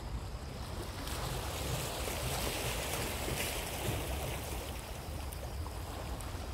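Sea waves washing over a rocky shore, with wind rumbling on the microphone; the hiss of the wash swells about a second in and eases off later.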